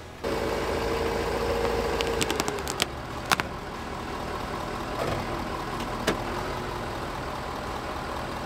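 Diesel pickup truck engine running after a sudden start, its note easing down a little a couple of seconds in, with a few sharp clicks.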